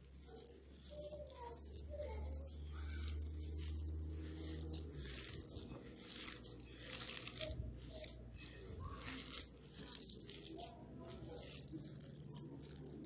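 Hands mixing and kneading a thick, sticky herbal paste of honey, oil, ground herbs and fat in a bowl, with faint irregular crackling and rustling.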